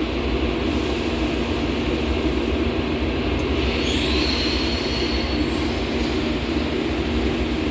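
Steady drone of running shop machinery, a continuous low hum under a wash of noise. About four seconds in, a high whine rises briefly and holds for a second or two before fading.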